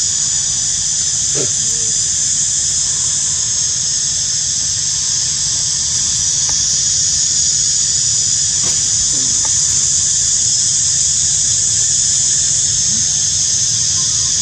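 Cicada chorus in tropical forest: a steady, high-pitched, continuous drone, with a couple of faint short sounds beneath it.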